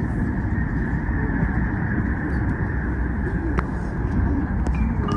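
Steady rumble of a CR400BF Fuxing high-speed electric multiple unit running, heard inside the passenger cabin, with one brief click about three and a half seconds in.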